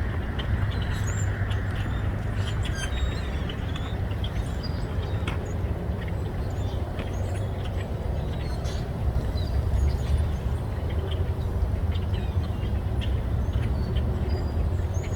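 A flock of grackles calling, with many short squeaky chirps and clicks scattered throughout, over a steady low rumble.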